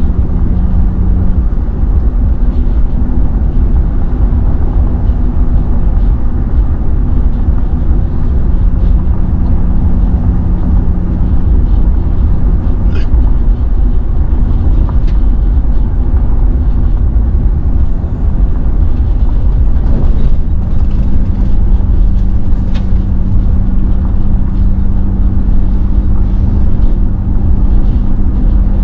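Car driving: a loud, steady low rumble of road and engine noise, with a faint engine hum that drops away and comes back, and a few faint ticks.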